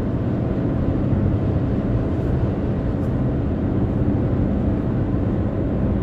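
Steady road and engine noise inside the cabin of a moving car: an even low rumble with no breaks.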